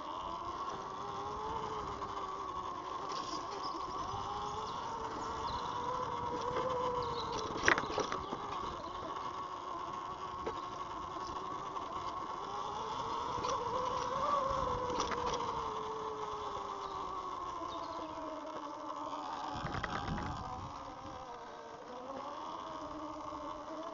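Eride Pro SS 3.0 electric dirt bike's motor whining while riding, the whine slowly rising and falling in pitch with speed, over a rush of wind and road noise. A sharp knock comes about eight seconds in.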